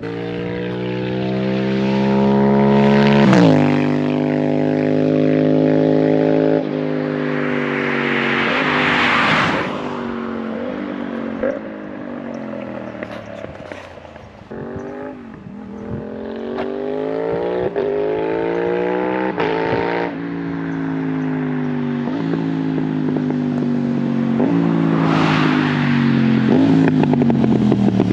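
Aprilia 660 parallel-twin motorcycle engine pulling hard through the gears: the pitch climbs and drops sharply at each upshift, falls away as the bike slows about halfway through, then climbs again through more gear changes.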